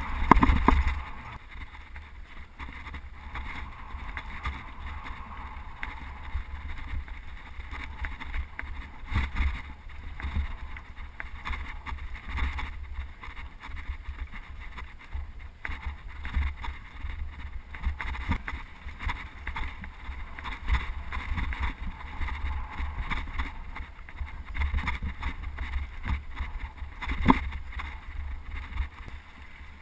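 Wind rumbling on the microphone with scattered knocks and rattles, as of a mountain bike ridden fast over rough trail; one sharper knock near the end.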